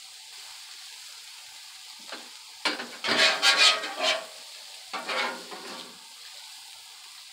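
Ground sausage sizzling on a hot steel flat-top griddle while a metal spatula scrapes across the plate, turning and scraping up meat that is sticking to it. Several scraping strokes, the longest and loudest about three seconds in.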